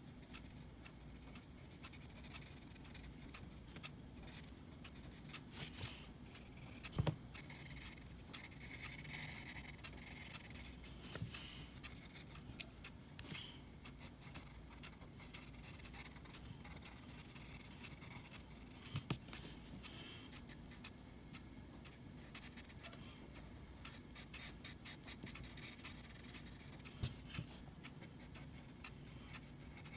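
Coloured pencil scratching and rubbing on paper in steady strokes. Three louder short knocks come about a quarter, two thirds and nine-tenths of the way through.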